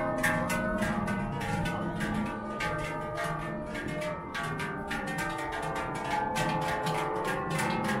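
Large Appenzell herdsmen's cowbells (Schellen) clanging in a steady, rapid rhythm, about two to three strokes a second, their ringing overlapping.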